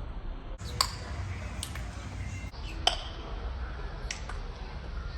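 Chewing gum being cracked in the mouth: four sharp snaps, the loudest about a second in and just before three seconds, over a low background rumble.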